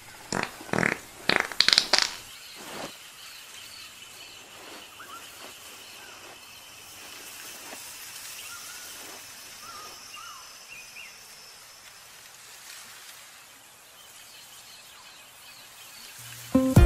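Forest ambience: short bird chirps over a low steady background with a faint high-pitched drone, after a few loud sharp crackles in the first three seconds. Music starts near the end.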